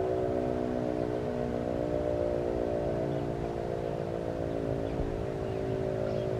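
GCS Model 5 outdoor warning siren sounding a steady wail made of several held pitches at once, over a low rumble.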